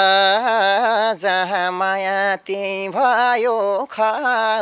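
A man singing a long, drawn-out line of a Nepali dohori folk song without accompaniment, holding notes with wavering ornaments. There are two short breaks, about two and a half and four seconds in.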